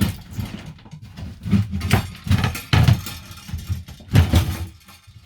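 Irregular knocks and clatters of parts and wiring being handled and pulled out of the van interior, loudest about two to three seconds in and again about four seconds in.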